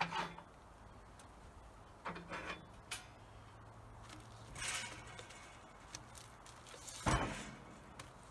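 Scattered knocks and scrapes of a log being shifted by hand on a sawmill's steel bed, the loudest a single thump about seven seconds in.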